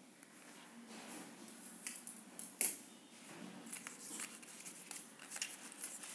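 Felt-tip markers and paper being handled: scattered light clicks and rustles, with one sharp click about two and a half seconds in.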